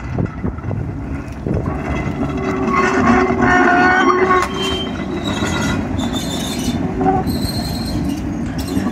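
1947 St. Louis Car Co. PCC streetcar rolling slowly past on a curve: steady rumble of wheels on rail, with the wheels squealing on the curve for about two seconds partway through and briefly again near the end.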